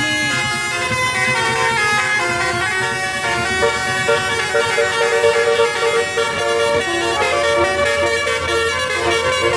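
Indonesian bus 'telolet' musical air horn playing a tune: held horn notes that step up and down in pitch one after another.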